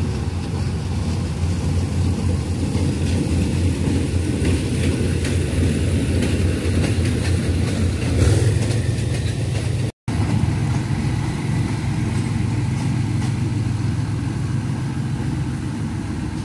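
Diesel-electric locomotive 4025 pulling out under power, a steady deep engine drone that swells slightly before a sudden break about ten seconds in, after which the engine drone carries on.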